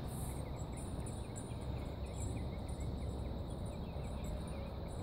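Outdoor ambience of insects chirring steadily, with a low steady rumble underneath.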